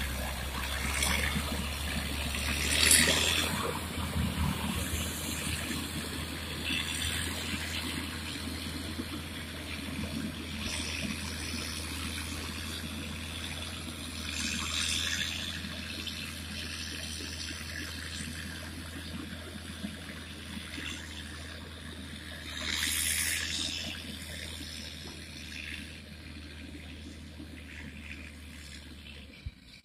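Caterpillar motor grader's diesel engine running steadily as it grades the dirt, with several brief hissing bursts over it. The sound slowly grows fainter toward the end.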